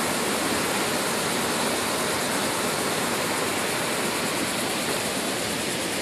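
Small waterfalls rushing steadily into a river: an even, unbroken sound of falling water.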